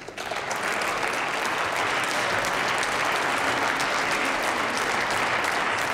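Members of parliament applauding from the benches: many people clapping at once, a steady dense patter that starts right as the speech ends.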